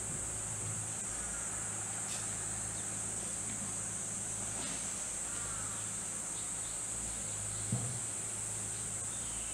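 Steady, high-pitched drone of insects singing, over a low steady hum, with a brief soft knock near the end.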